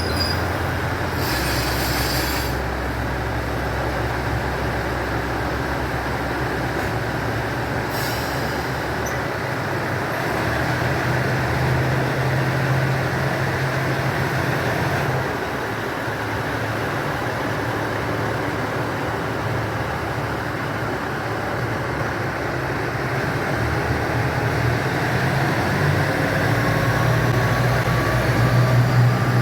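KiHa 85 series diesel railcar running, a steady rumble of wheels and rail with a low diesel engine hum that shifts pitch a few times. A short hiss comes about a second and a half in, and faint rising whines come in near the end.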